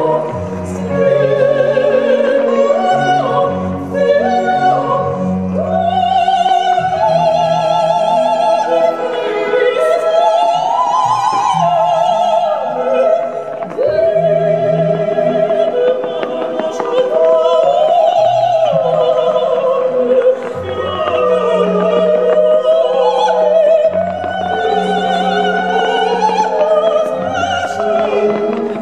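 Classical music: a singer holding long notes with a wide vibrato over orchestral accompaniment.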